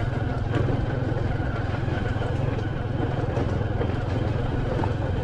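Motorcycle engine running steadily under way, a constant low drone with an even rushing noise over it, picked up by a helmet-mounted camera.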